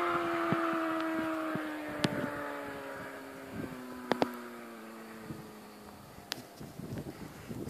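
Suzuki GSX-R 600 inline-four engine moving away, its high engine note falling slowly in pitch and fading out over about six seconds.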